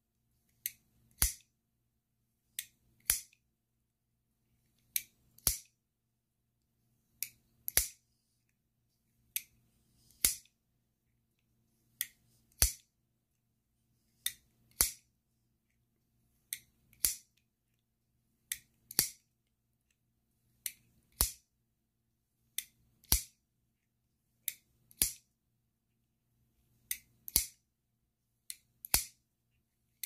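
Boker Kalashnikov automatic knife being fired open and folded shut over and over. The clicks come in pairs about half a second apart, the second of each pair the louder, a pair every two seconds or so.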